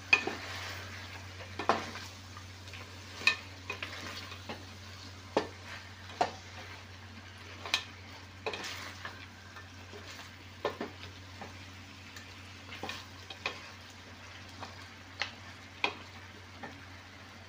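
A wooden spoon stirring shrimp, corn and potatoes in sauce in a sizzling stainless steel pot. It knocks sharply against the pot at irregular moments, about every one to two seconds, over a steady sizzle.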